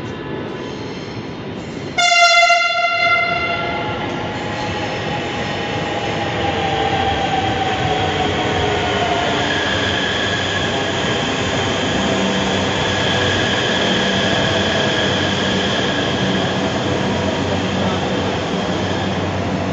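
Namo Bharat RRTS electric train sounds one short horn blast about two seconds in, then pulls into the platform. A whine falls slowly in pitch as it slows, and steady running noise follows.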